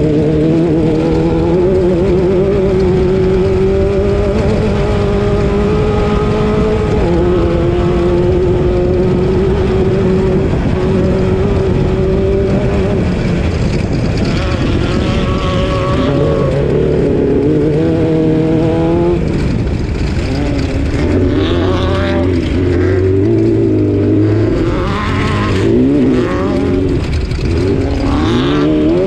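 Class 12 off-road race car engine running hard at high revs over steady rumbling noise. The pitch holds, climbs, then drops sharply about two-thirds of the way through, and after that rises and falls with the throttle.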